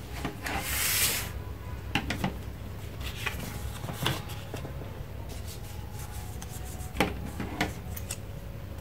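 Coloured craft paper being handled and worked by hand: a brief rustle about a second in, then a few separate sharp clicks and rubs spread through the rest.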